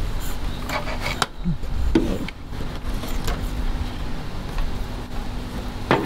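Light rustling and a few sharp clicks as a network cable is pulled through a rubber grommet in a soffit hole, with a cluster of clicks about a second in and another near the end, over a steady low rumble.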